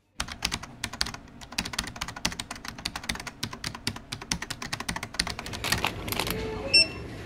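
A quick, irregular run of small sharp clicks and taps at a self-checkout station, then a single short electronic beep of the checkout scanner near the end.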